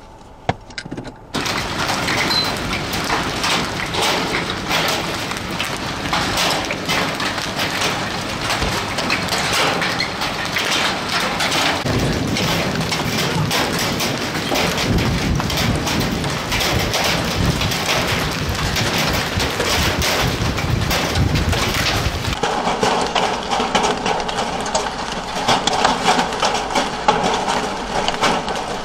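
Hail falling hard on pavement and vehicles: a dense clatter of countless small hits that starts suddenly about a second in. The clatter turns thinner and higher near the end.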